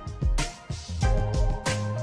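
Background music with a steady beat: sustained instrument tones over regular drum hits.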